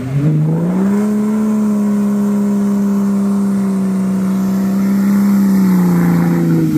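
Off-road 4x4's engine revved up and held steady at high revs under heavy throttle for several seconds, easing off near the end.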